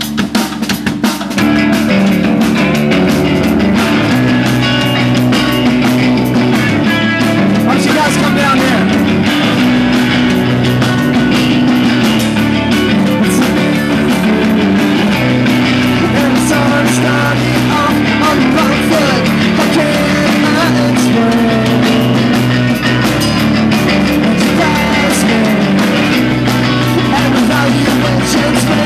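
Live punk-rock band playing at full volume: distorted electric guitars, bass guitar and a drum kit, with vocals at the mic. The recording is overblown from the loud amplification.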